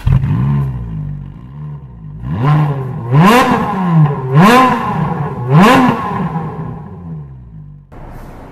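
Ferrari F430's V8 engine starting with a sharp flare of revs and settling to idle, then blipped three times about a second apart, each rev rising and falling quickly before it drops back to idle. Near the end the sound cuts abruptly to a quieter, steadier engine sound.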